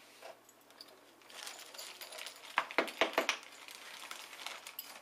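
Small metal screws clinking and rattling as they are sorted through by hand, with a quick run of four or five sharp clicks about two and a half seconds in.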